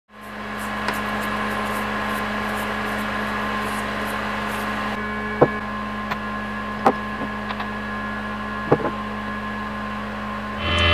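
CNC milling machine running: a steady hum with a few fixed whining tones, and three sharp clicks in the middle.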